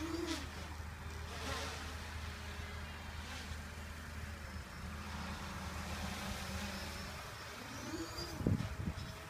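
Quadcopter with 2212 1000kv brushless motors flying overhead, its propellers giving a steady buzz whose pitch rises and falls with the throttle. A brief louder rush of low noise comes near the end.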